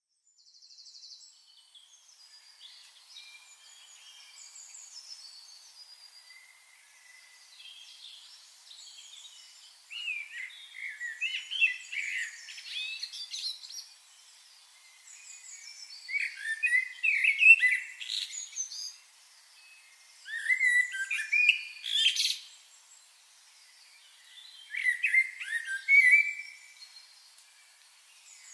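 Wild birds chirping and singing in short warbled phrases. The calls are faint for the first few seconds, then come in four louder bursts of a few seconds each, with quieter gaps between.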